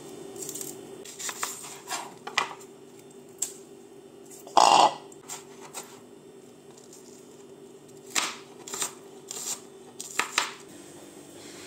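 Kitchen clatter: scattered, irregular clicks and knocks of cookware and utensils being handled, with one louder clatter about five seconds in, over a steady low hum.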